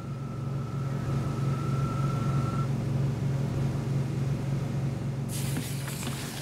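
Lifeboat's engines running at a steady drone, with a thin high whine over the first two seconds or so. About five seconds in, a rushing noise of wind on open water comes in over the engine.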